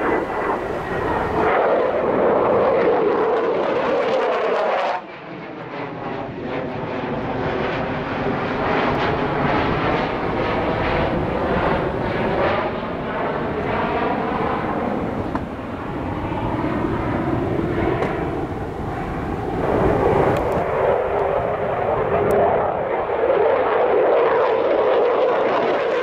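Twin turbofan engines of a Mitsubishi F-15J fighter jet (IHI-built Pratt & Whitney F100s) running hard during display manoeuvres. The loud jet roar drops suddenly about five seconds in, then rises again with a swirling, shifting tone as the jet passes, and swells once more near the end.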